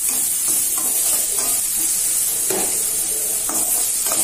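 Chopped onions and green chillies sizzling in hot oil in a stainless steel kadai, with a steady hiss. A spatula stirs them, scraping against the pan at irregular strokes throughout.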